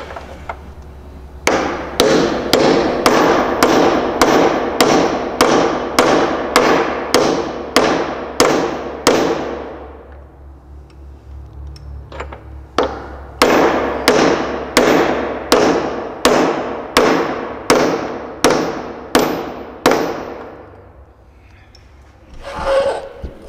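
Hammer striking a socket set on the outer race of a new sealed bearing, driving the bearing up into the spindle housing of a Hustler Z 72-inch mower deck. Steady blows about two a second, each with a brief metallic ring, in two runs with a pause of a few seconds in the middle.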